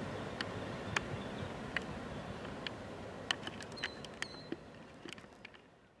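Rumble of a passing freight train fading away, with scattered sharp clicks and ticks, before the sound dies out at the end.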